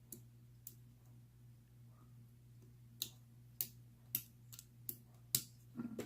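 Metal lock-picking tools clicking against a Sesamee 937 round-body padlock as it is being picked: two light clicks, then a run of sharper clicks about every half second from about three seconds in. A faint steady hum lies underneath.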